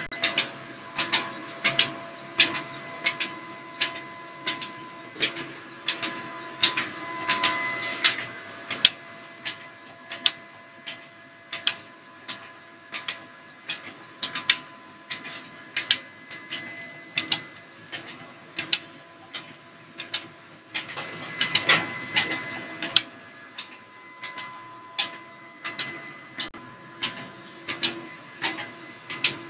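Belt-driven mustard oil expeller running, with a steady machine whine and a sharp regular click about twice a second from its flat-belt drive and pulleys.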